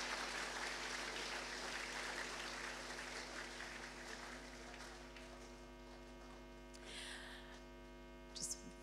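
Audience applause dying away over the first few seconds, leaving a steady electrical hum.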